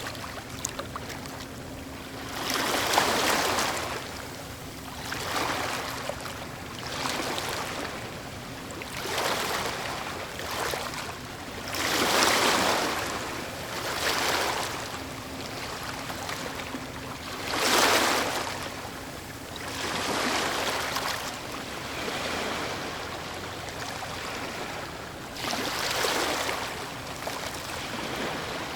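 Ocean waves crashing one after another: each wave a swelling rush of surf that falls away, coming every two to four seconds over a steady wash.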